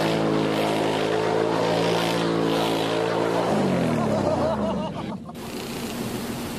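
ATV engine running at steady high revs, then dropping in pitch as it slows, about three and a half seconds in. About five seconds in it cuts off suddenly to a steady hiss.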